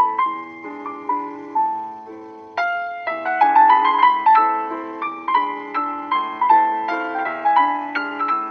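Background piano music: a melody of single notes, each struck and then dying away.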